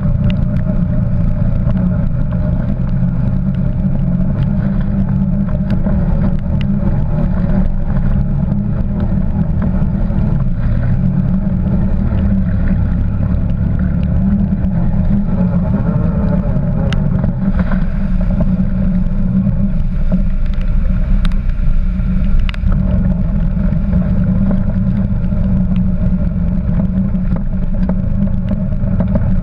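Quad bike engine running steadily as it pushes through a flooded track, with water splashing around it and a few sharp knocks in the middle.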